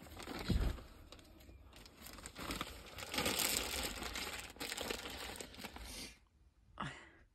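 Packaging crinkling and rustling as items are handled, in an irregular run of small crackles that stops about six seconds in.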